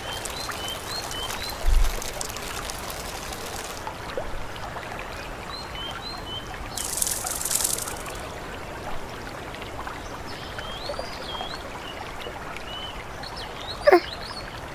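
Cartoon riverside ambience: a steady trickle of running water with small bird chirps. A low thud comes about two seconds in, a short hiss in the middle, and a brief sliding sound effect near the end.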